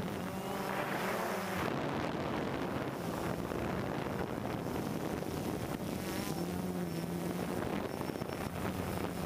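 DJI Phantom quadcopter's motors and propellers buzzing steadily, with wind rushing over the on-board microphone. The buzz wavers about a second in and grows stronger from about six seconds in as the drone changes speed.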